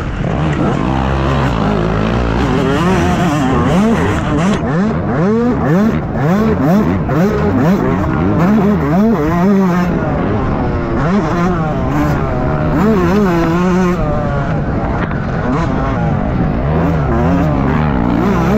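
Motocross bike engine revving hard, its pitch climbing and dropping again and again as the throttle is worked, with several engines overlapping for a few seconds in the middle.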